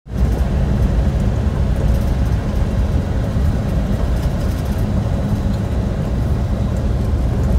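Steady low rumble of a vehicle driving on a dirt road, heard from inside the cabin: engine and tyre noise, with a few faint ticks.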